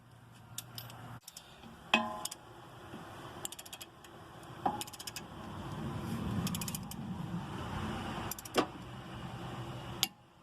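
Ratcheting torque wrench tightening a front lower ball joint nut: several short runs of rapid ratchet clicks between strokes. A metallic clink with a brief ring comes about two seconds in.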